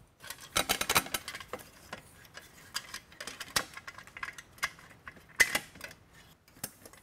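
Tripod feet and locking bolts being worked into the slots of a ProMax track dolly by hand: an irregular run of metal clicks, clinks and rattles, densest about a second in and with a sharp knock about five and a half seconds in.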